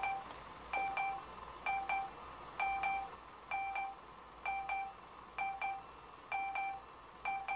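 Electronic beeping: a quick double beep, two short tones in close succession, repeating about once a second.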